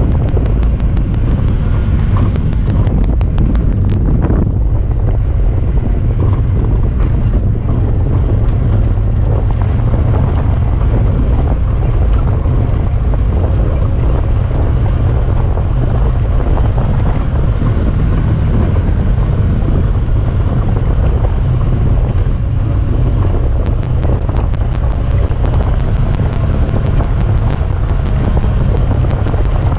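Honda Talon 1000R side-by-side under way, its engine and drivetrain running steadily with heavy wind buffeting on the microphone. A fast, regular ticking is heard at the start and again from about 24 s on, a noise that comes from the camera.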